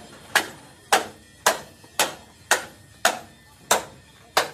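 Hammer striking metal in a steady rhythm: eight evenly spaced blows, about two a second, each ringing briefly, as steel is worked in a truck bogie-shaft repair.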